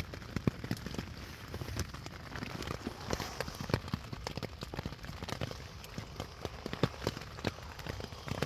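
Rain falling on a tent, heard from inside: a steady hiss dotted with many irregular taps of drops.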